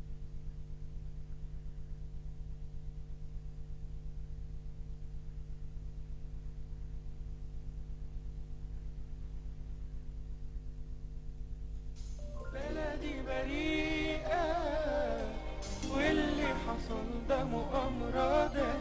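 Intro of an Egyptian Arabic pop song: a held chord with a quick, even pulse, then about twelve seconds in a singing voice with strong vibrato comes in over the music and it grows louder.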